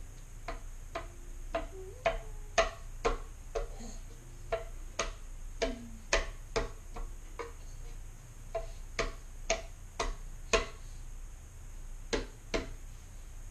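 Sharp wooden knocks about twice a second, uneven in loudness and pausing briefly twice: a baby slapping the top of a small wooden step stool with its hand.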